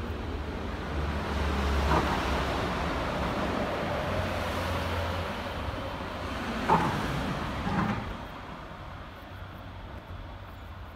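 Articulated electric tram pulling away and moving off: low rumble with a faint rising motor whine, sharp wheel knocks over the rails about two seconds in and again about seven to eight seconds in, then dying away.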